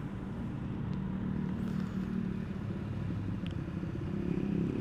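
Honda Vario 125 scooter's single-cylinder engine idling steadily at a standstill. A second motorbike's engine comes in near the end.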